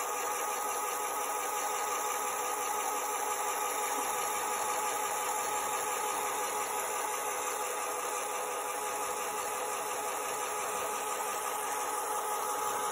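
Small LEGO electric motor running steadily, turning a gear train and a spool that winds in the lift's string: an even whine that does not change.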